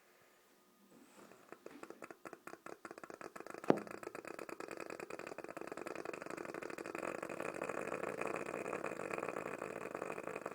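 A semi-conscious European badger snoring heavily through a congested nose: a fast, continuous rattle that builds from about a second in and grows fuller in the second half, with one sharp click about four seconds in. The congestion is thought to come from fluid in her lungs after she was hit by a car.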